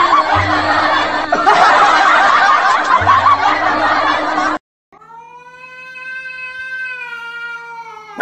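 Canned laughter over music that cuts off abruptly about four and a half seconds in; after a brief silence, a cat gives one long, steady yowl lasting about three seconds, hostile at a plush toy dog.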